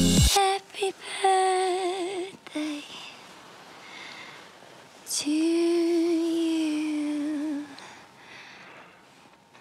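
A woman humming without words: short wavering notes with a quick vibrato about a second in, then one long held low note for more than two seconds about halfway through. A loud electronic music beat cuts off suddenly right at the start.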